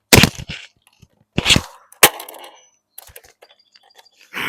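A plastic Nerf blaster shaped like the Minecraft Ender Dragon being handled: several short clattering rustles, a sharp plastic click about two seconds in, and a few light ticks.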